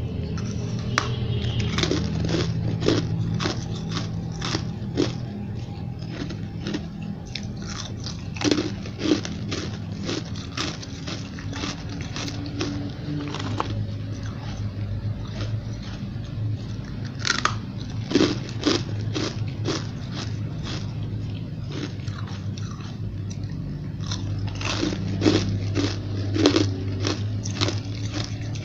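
A person biting and chewing fluffy, frosty ice chunks close to the microphone: many sharp, crisp crunches, coming in clusters with short lulls between.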